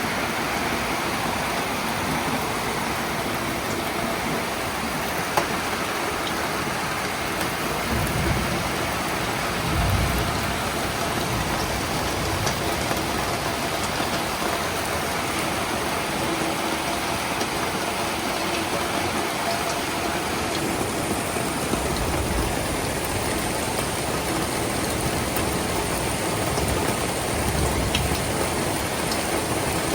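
Steady rushing noise of a flash-flooded creek, swollen water pouring past without a break, with a few deeper low swells mixed in.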